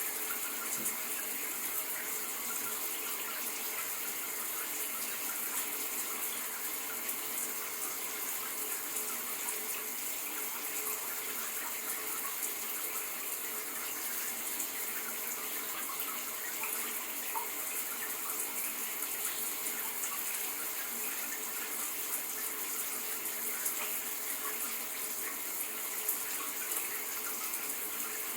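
Shower running steadily, a constant hiss of water spray with small splashes and droplets.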